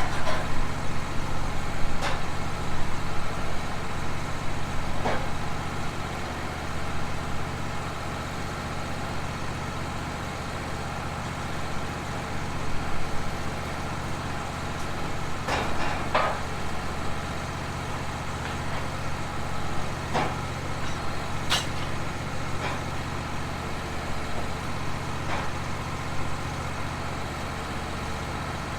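An engine running steadily at idle, with scattered knocks and clicks over it, more of them in the first few seconds.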